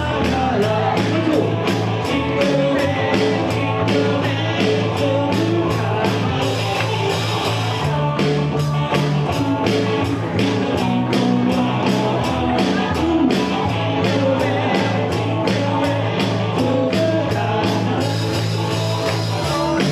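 Live band playing an upbeat song with singing over a steady drum beat.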